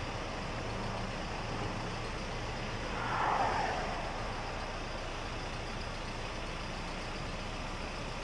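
Steady background noise of motor vehicles while engine oil is poured from a plastic jug through a funnel, with a brief rushing swell about three seconds in.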